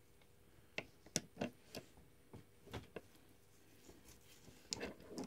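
A few light, irregular taps and clicks, about seven in five seconds, in a quiet small room.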